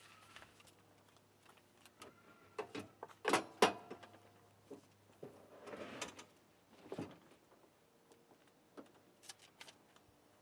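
Scattered knocks and clicks from things being handled, with two louder sharp knocks about three and a half seconds in and a short rustle a couple of seconds later.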